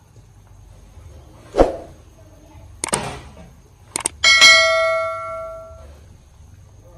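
Subscribe-button animation sound effects: a short knock, then clicks, then two quick mouse clicks followed by a notification bell ding that rings and fades over about a second and a half.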